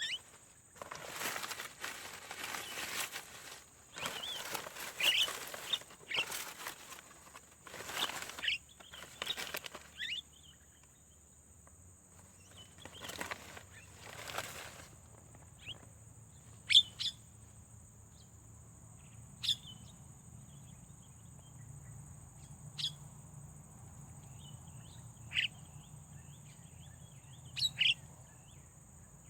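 Birds chirping, with short sharp calls every two to three seconds in the second half over a steady high whine. In the first ten seconds several loud bursts of noise come and go among the calls.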